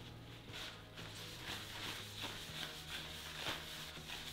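Hand rubbing wax into an oak board in repeated faint strokes, a soft scrubbing over the wood.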